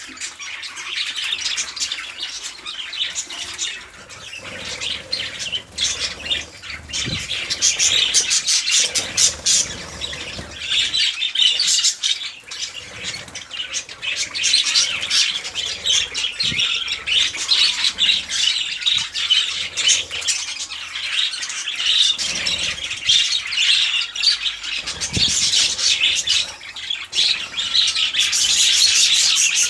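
Several budgerigars chattering and squawking continuously, many overlapping calls with quick clicks among them.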